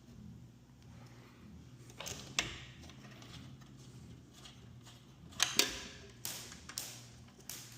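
Scattered clinks and knocks of tools and metal hardware being handled during garage door repair work, the loudest pair about five and a half seconds in, over a low steady hum.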